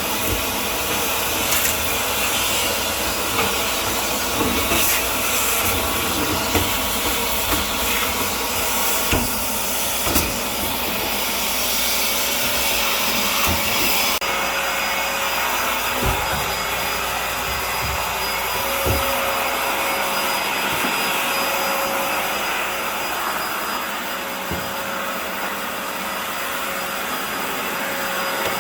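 Vacuum motor running steadily, with occasional knocks, used to suck loosened lint and debris from a dryer vent. About halfway through the sound changes and a steady high whine comes in.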